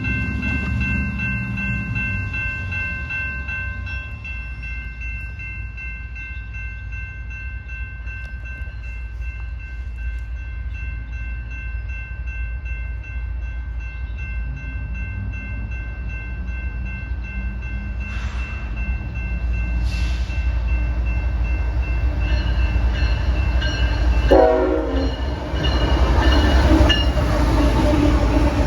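Diesel freight train locomotives rumbling, with a set of steady high tones that fade out over the first half. The train grows louder near the end.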